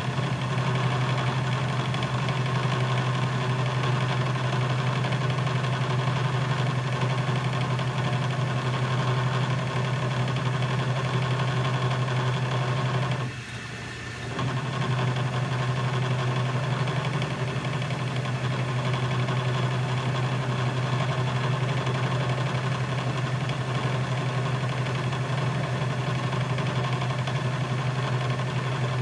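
1958 Atlas Craftsman metal lathe running steadily, its motor and drive humming, while a center drill in the tailstock cuts into a spinning drill-rod bar. About halfway through, the sound drops off for about a second, then comes back as before.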